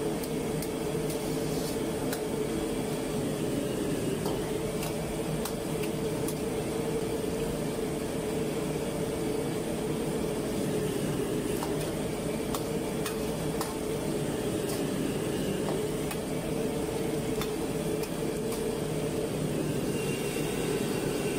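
High-pressure gas wok burner running steadily under a wok of boiling water, with occasional light clinks of the metal ladle against the wok.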